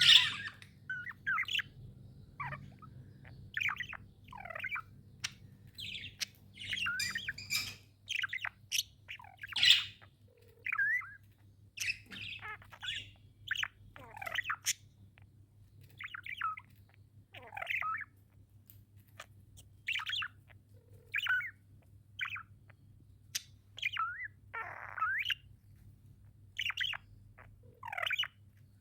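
Pet budgerigars chirping and warbling: a stream of short, irregular chirps with the odd squawk, over a steady low hum.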